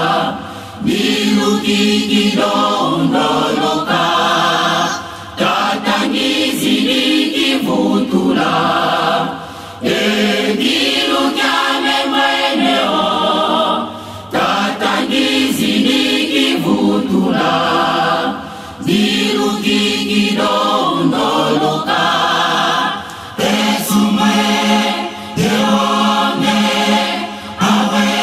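Church choir of men and women singing a hymn in harmony, apparently without instruments, in phrases of a few seconds separated by brief pauses.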